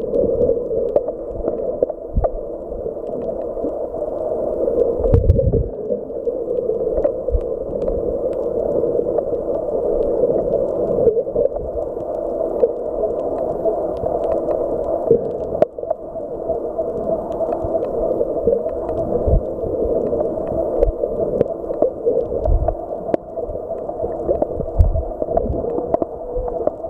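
Underwater ambience recorded by a submerged camera: a steady, muffled hum with a few low thumps, about five seconds in and again near the end.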